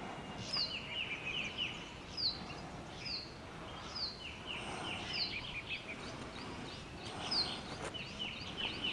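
Forest birds calling: short, high, downslurred notes repeated about once a second, with bursts of quicker, lower chirping notes between them.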